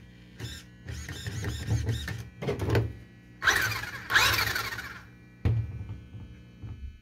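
Electric drive motor and gears of a 1/16 scale RC monster truck run in a series of throttle bursts with the wheels spinning freely, each burst winding up to a whine and dying away. The two loudest come about halfway through, with a short blip near the end.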